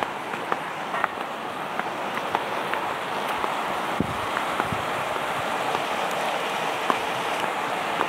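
Footsteps on a dirt path and concrete steps, a scattering of soft scuffs and taps, over a steady rushing hiss.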